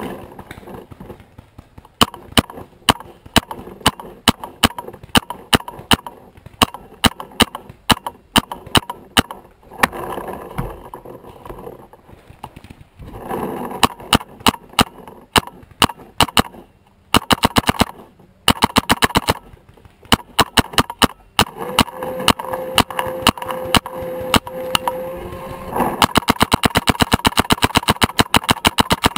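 Paintball marker firing: sharp shots, sometimes single and sometimes in quick strings, then a fast, even string of shots near the end.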